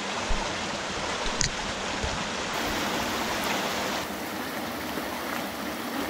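Shallow mountain stream running over rocks, with spring water spilling from a rock wall: a steady rush of water, with one small click about a second and a half in.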